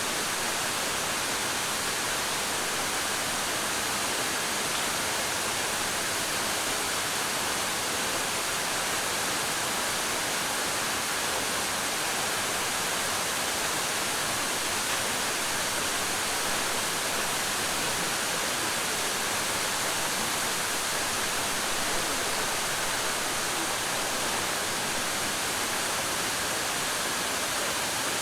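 Waterfall, a steady even rush of falling water.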